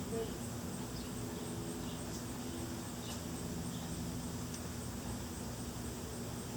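Insects chirping in a steady, evenly pulsing high drone, with a faint low hum underneath and a few light ticks.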